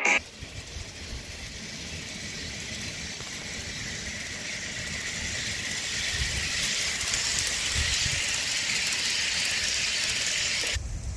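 HO-scale model train running past on outdoor track: a steady hissing rattle of its wheels on the rails, growing louder as it comes closer. Dull thumps of wind hit the microphone. The sound stops abruptly near the end.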